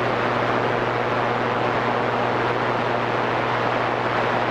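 CB radio receiver static: a steady hiss with a low hum under it on the open channel between transmissions.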